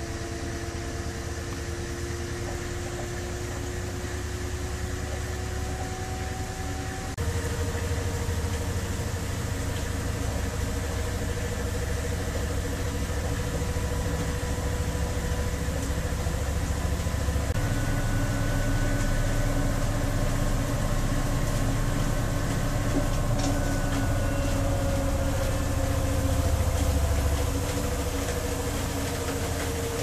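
Samsung Bubble Shot 3 W9000 front-loading drum washing machine running its spin cycle: a low rumble with a motor whine that drifts in pitch. It gets louder about seven seconds in and shifts pitch again around the middle.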